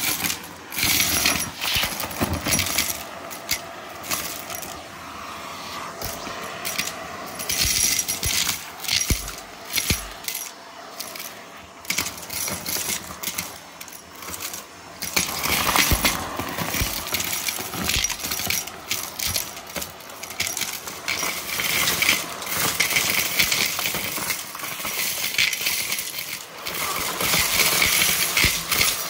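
Irregular clattering and clinking of small hard objects: many sharp clicks at no steady rhythm, over a hissing noise.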